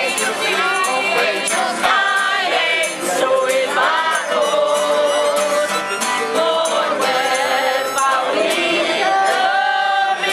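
Music with singing voices, sung continuously with vibrato.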